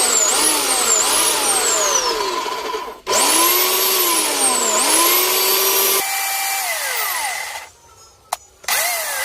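Electric motor of a Bosch GAC 250 block cutter running in bursts. Its whine repeatedly sags in pitch and jumps back up as the speed drops and picks up again. It cuts out briefly about three seconds in, runs down and stops about two-thirds of the way through, then starts again after a click near the end.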